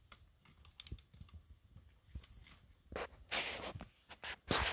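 Light clicks and knocks of a large plastic Big Zam figure being handled, followed by a few louder rustling scrapes about three seconds in and again near the end.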